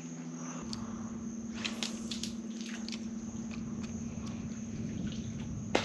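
Electric trolling motor humming steadily, stepping up in pitch about half a second in, with a few sharp scattered clicks over it.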